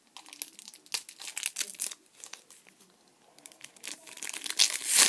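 Sticker packets being torn open by hand, the wrappers crinkling and crackling in bursts, with a quieter pause in the middle and the loudest crackling near the end.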